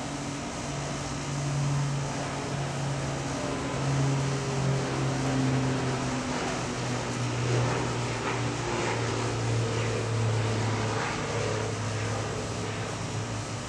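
A motor running nearby: a steady low drone whose pitch slowly drifts up and down.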